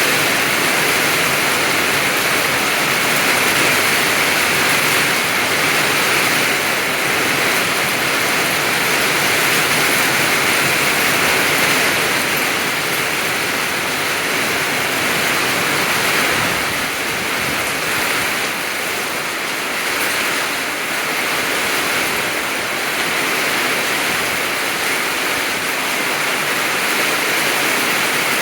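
Heavy rain pouring down in a steady rushing hiss, easing a little about two-thirds of the way through.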